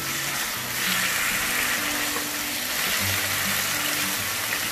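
Marinated chicken sizzling in hot oil in a frying pan as it is stirred, the sizzle swelling about a second in. Soft background music plays underneath.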